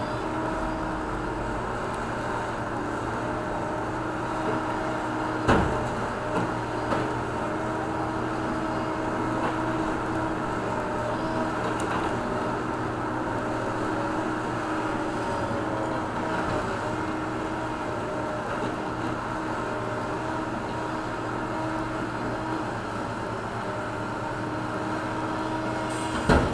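John Deere backhoe loaders' diesel engines running steadily at a constant pitch while digging. A sharp knock about five seconds in is followed by two lighter knocks, with another knock near the end.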